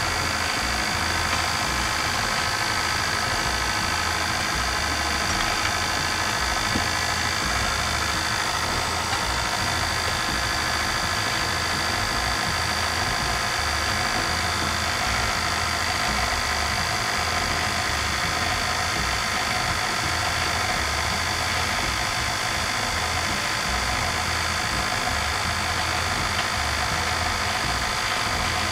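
KitchenAid stand mixer's motor running steadily, driving a pasta roller attachment as a sheet of dough is fed through the rollers.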